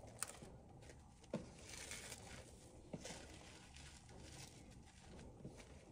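Very faint handling noise: four light taps spread across a few seconds, with a soft rustle about two seconds in.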